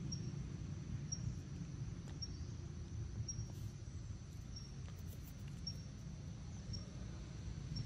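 Forest ambience: a short, high chirp repeating about once a second over a steady low rumble.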